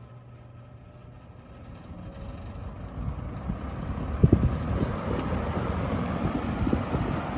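Mid-1970s TG&Y Golden T (Champion) model H-20L-3 20-inch box fan switched on at high speed, its blades spinning up. The rush of air builds from about two seconds in, then runs steady, buffeting the microphone with low thumps.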